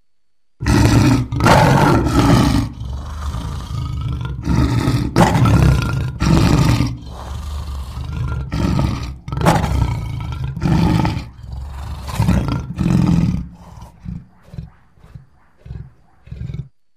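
Lion roaring: a bout of long, loud roars that gives way near the end to a run of short grunts, then cuts off.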